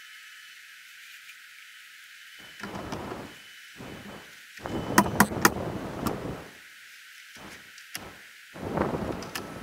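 A siding plank being handled and set against the wall, with three sharp knocks in quick succession about five seconds in.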